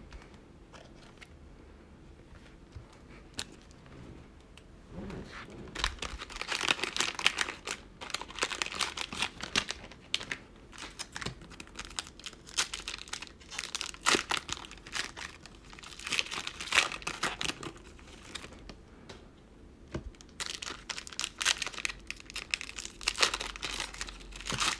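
Plastic cello-pack wrappers of 2020 Panini Mosaic football trading cards crinkling and tearing as they are torn open and handled. The crinkling comes in bursts, starting about six seconds in.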